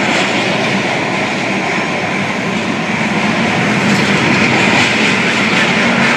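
Freight train of tank cars rolling past below: a steady, loud noise of steel wheels running on rail.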